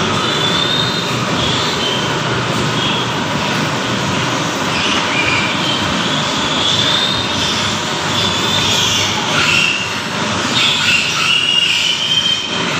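Piglets squealing in high-pitched, drawn-out, wavering cries, several overlapping through the stretch, over a steady rushing noise.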